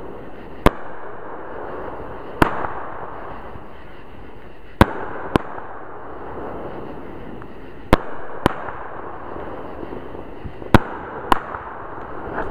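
Consumer fireworks going off: sharp bangs, mostly in pairs about half a second apart, every two to three seconds, over a steady hiss.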